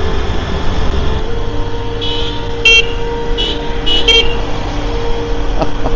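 Vehicle horns honking in traffic: a handful of short, high toots in quick succession between about two and four seconds in, over the steady rumble of engine and road noise.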